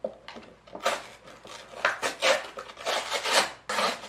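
Brown cardboard takeaway food box being torn and pulled open by hand: about six irregular bursts of tearing and scraping paperboard.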